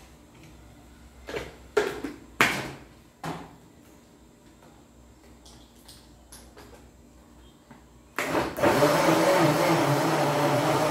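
A few clunks as the blender jar is handled, then near the end a countertop electric blender starts and runs steadily, churning a thick homemade hair cream of aloe and okra gel, oils and cream.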